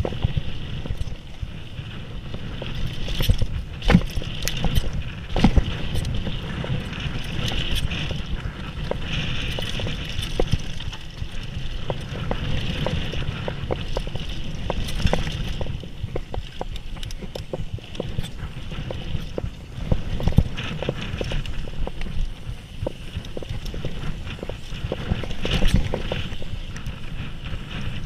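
Mountain bike running down a dirt flow trail: a steady rumble of tyres on dirt with frequent sharp knocks and rattles of the bike over bumps and landings, a few of them much harder.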